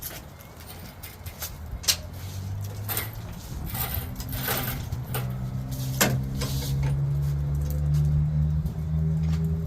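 A motor running with a steady low hum that swells in about two seconds in and holds, with scattered metallic clinks and knocks on top.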